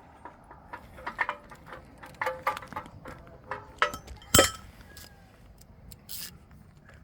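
Irregular knocks, clinks and scrapes, with one loud knock about four and a half seconds in.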